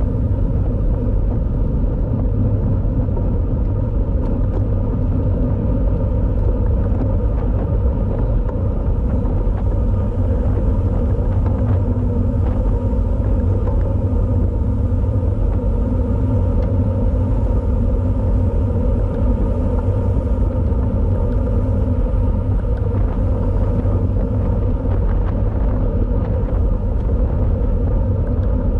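Loud, steady wind rumble on a road cyclist's camera microphone at riding speed, with no breaks or distinct events.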